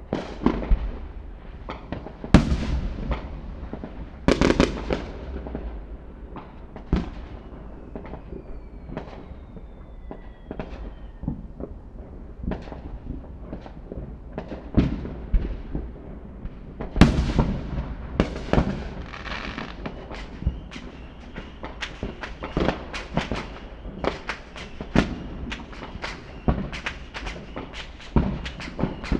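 Fireworks display: a string of sharp bangs, several of them big booms that die away slowly, with a faint falling whistle about nine seconds in. From about twenty seconds in, the bangs come thick and fast as rapid crackling pops.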